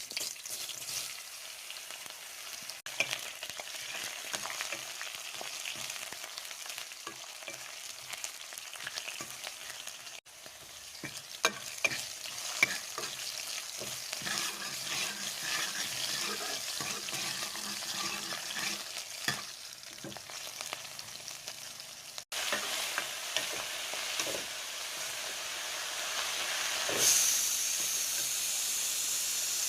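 Saag (leafy greens) sizzling in hot oil in a pan while being stirred, with frequent small clicks of a spatula against the pan. Near the end the sizzle turns into a louder, steadier hiss.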